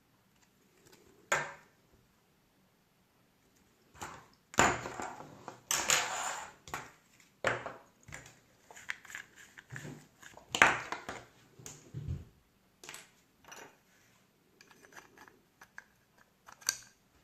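Handling noises from small hard parts: irregular clicks, taps and scraping, loudest in a cluster about five seconds in and a sharp knock near the middle.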